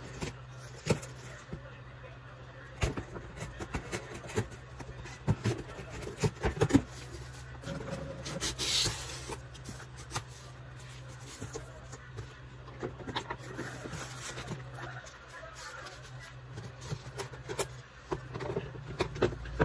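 A cardboard box being opened and unpacked: scattered knocks, clicks and scrapes of the flaps and the packed parts being handled, with a brief harsher scrape about nine seconds in. A steady low hum runs underneath.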